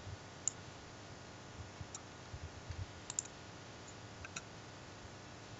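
A few faint, scattered computer mouse clicks, spaced irregularly about a second apart.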